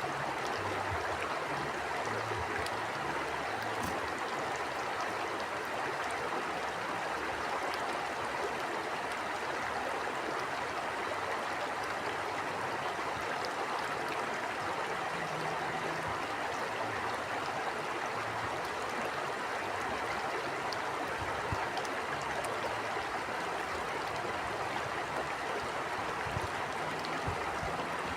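Stream water flowing and splashing over stones in an even, steady rush.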